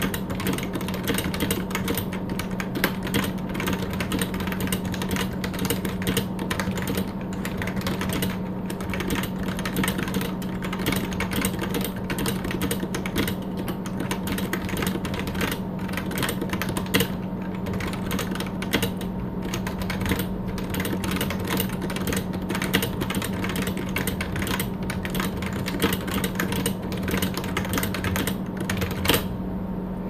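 Fast, continuous typing on a Topre Realforce 87UB keyboard fitted with an aftermarket BKE dome sheet and the stock dome under the spacebar: a dense stream of key strokes. A steady low hum runs underneath, and the typing thins out near the end.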